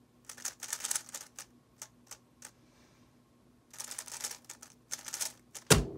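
YJ YuHu V2 M megaminx being turned by hand: quick flurries of plastic clicking as its faces are snapped round, with a short pause in the middle. A single heavier thump comes near the end.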